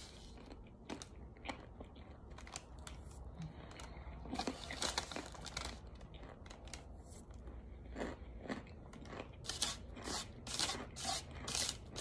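Toasted cornstarch chunks and powder crunching as they are scooped with a spoon and chewed: a string of short, dry crunches, thickest about four to five seconds in and again in quick succession near the end.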